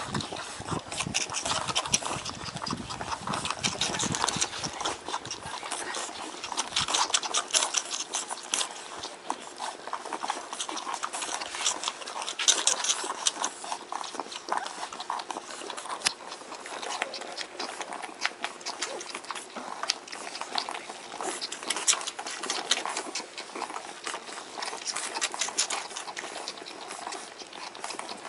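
A litter of Shar-Pei puppies nursing from their mother: a dense, continuous run of wet suckling and smacking clicks.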